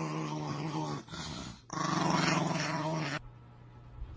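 Small dog growling in two long, steady grumbles of even pitch as it nibbles a treat from fingers: a contented 'nom nom' eating growl. The second grumble stops about three seconds in.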